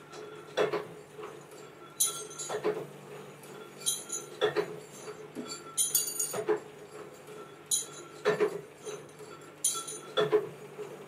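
Metal clinking in a steady rhythm: about every two seconds a sharp clink, followed shortly by a duller metallic knock, over a constant machine hum.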